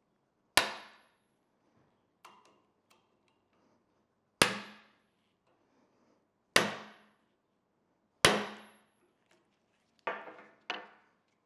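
Hammer blows on a steel punch held in a bench vise: four loud metallic strikes about two seconds apart, each ringing briefly, with a lighter tap between the first two. Two quicker knocks follow near the end as the hammer and punch are set down on the bench.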